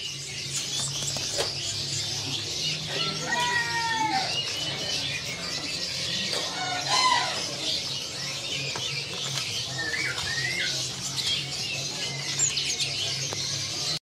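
Many caged songbirds chirping and squawking together, with a few louder whistled calls about three and seven seconds in, over a low steady hum.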